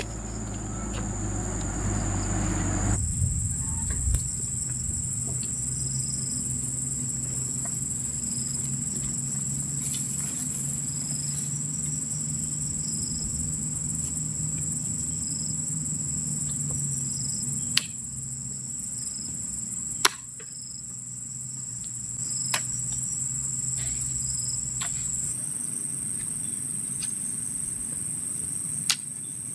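Night insects, crickets, chirring in a continuous high-pitched drone that shifts slightly higher near the end, with a few sharp clicks or knocks scattered through it.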